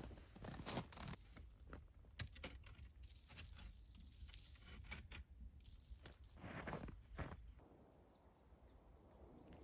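Quiet, irregular crunching in crusty, frozen snow, with a few louder crunches and fading near the end.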